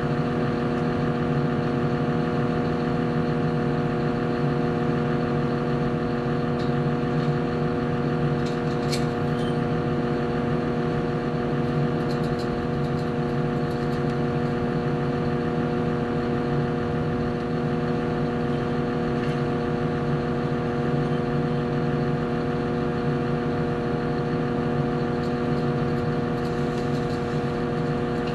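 Wheel loader's diesel engine running steadily, heard from inside the cab, as a drone that holds one pitch throughout. A few faint clicks come about nine and twelve seconds in.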